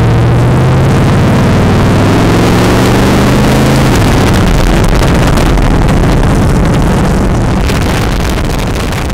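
Chevelle's engine accelerating hard, its pitch climbing steadily for about four seconds, then dropping at a shift and running on at speed under heavy wind and road noise that fades slightly near the end.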